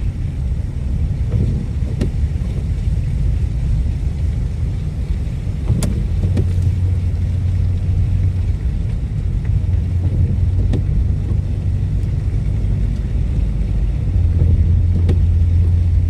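Car driving on a snow-covered road, heard from inside the cabin: a steady low road and engine rumble, with a deeper hum that swells about six seconds in and again near the end. A few faint clicks are scattered through it.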